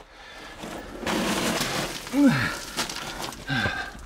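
Clothing, pack and boots scraping and crunching against rock and loose broken rock while squeezing through a tight mine passage, followed by two short grunts of effort that drop in pitch.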